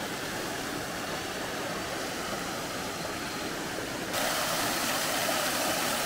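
Steady rush of water pouring over a small rocky cascade in a mountain stream, growing louder about four seconds in.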